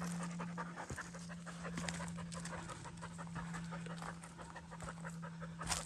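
Dog panting in quick, steady breaths, with one sharp click near the end.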